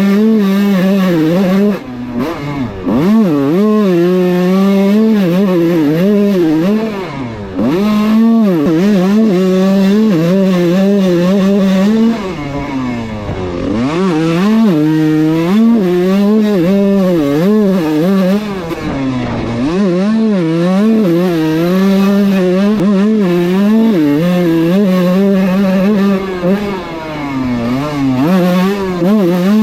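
Kawasaki KX125 two-stroke dirt bike engine being ridden hard, its pitch climbing and dropping repeatedly as the rider accelerates and shifts. About four times the throttle is chopped and the revs sag before it pulls again.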